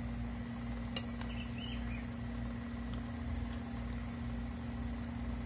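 Eating with a metal spoon from a plate: one sharp spoon click about a second in, over a steady low hum.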